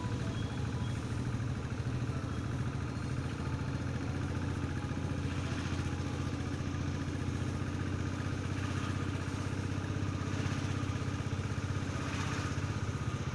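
Motorcycle engine running steadily as the bike is ridden, an even low engine note with no change in speed.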